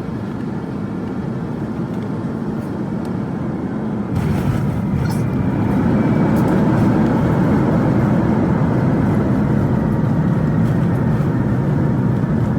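Cabin noise inside an Airbus A350-900 on landing. A steady hum gives way, about four seconds in, to a sudden jump in level with a few sharp knocks as the wheels touch down on the runway. A louder, steady rumble of the landing roll follows.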